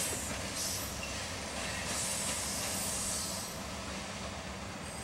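A Union Pacific freight train's last car rolling away on the rails: a steady low rumble of wheels with a hiss, easing slightly near the end. Under it the train's diesel locomotives are still heard working in the distance.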